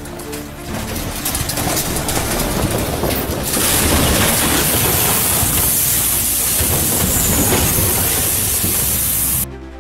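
Rockslide: boulders and loose rock crashing down a slope. It makes a loud, rushing roar with a lot of hiss, builds over the first few seconds, and cuts off suddenly near the end.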